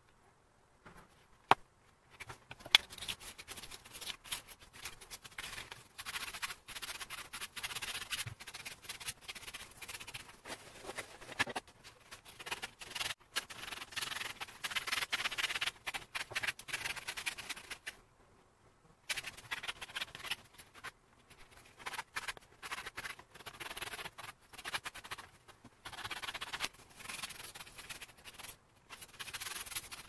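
Leather edges being sanded with a sanding block: dry scratching rubs in uneven strokes, broken by short pauses. Two sharp taps about two and three seconds in.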